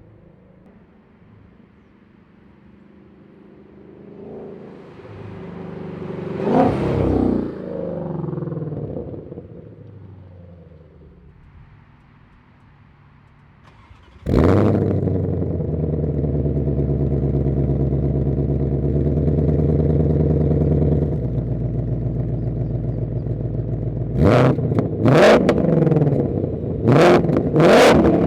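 A car drives past, rising and falling, about five to ten seconds in. Then the Shelby GT500's supercharged 5.2-litre V8 starts with a sudden bark about fourteen seconds in, settles into a steady idle, and is blipped in several short revs near the end.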